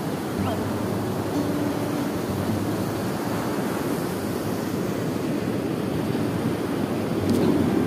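Ocean surf breaking and washing up a sandy beach in a steady rushing noise, with wind on the microphone.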